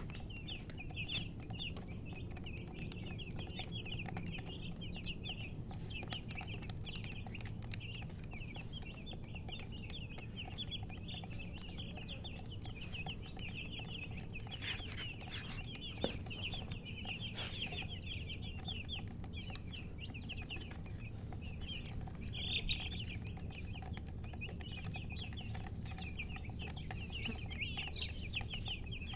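A group of chicks peeping continuously, many short high-pitched chirps overlapping in quick succession, over a low steady rumble.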